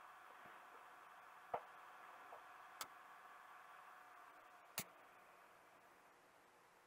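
Sharp clicks from turning the front-panel knobs of a LEADER LEM-75A analog electronic multimeter while setting it up: three distinct clicks a second or two apart, with a fainter one between the first two, over a faint steady hiss.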